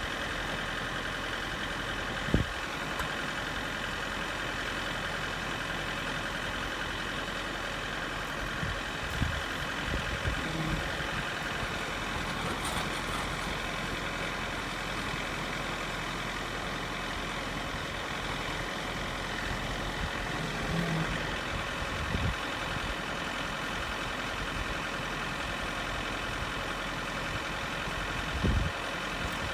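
John Deere 4066R's three-cylinder diesel engine running steadily under PTO load, turning a three-point post-hole auger into hard limestone, with a few sharp knocks.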